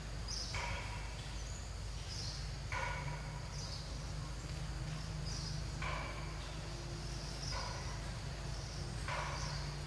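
Outdoor ambience of short, repeated chirping calls, one every one to three seconds, over a steady low hum.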